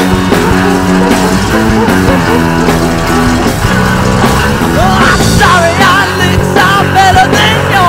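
Rock music with guitar playing steadily; a singing voice comes in about five seconds in.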